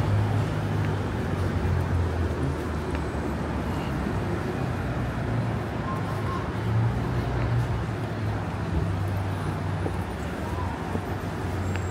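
Busy city ambience: a steady wash of traffic noise with indistinct voices of passers-by.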